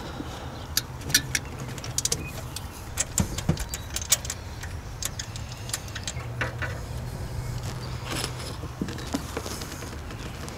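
Spark plug wires, boots and plastic wire loom clicking and rattling as hands work them among the engine's hoses, in many short sharp clicks, over a steady low hum.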